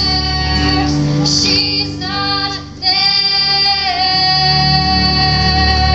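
Two young girls singing the last line of a stage-musical duet over guitar accompaniment. A short sung phrase breaks off, and then they hold one long final note.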